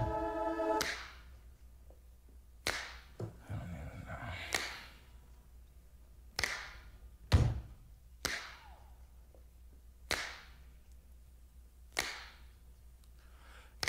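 The music cuts out and a sparse series of sharp cracking hits follows, about ten of them a second or two apart, each trailing off in a short echoing tail. One heavier hit with a deep thud comes about seven seconds in.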